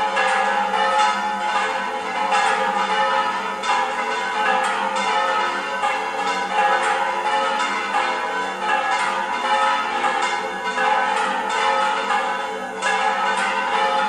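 Several church bells in the bell tower of the Mosque-Cathedral of Córdoba ringing together in a festive peal for a solemn feast day, strikes overlapping without a pause so the tones blend into one continuous clangour.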